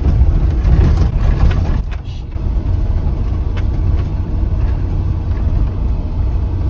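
Inside the cab of a converted Ford Transit van driving down a corrugated, rutted dirt track: a steady low rumble of engine and tyres, with knocks and rattles as it bumps over the ruts.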